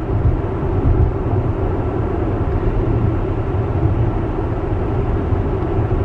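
Steady road and tyre noise heard inside the cabin of a Tesla electric car cruising on wet pavement.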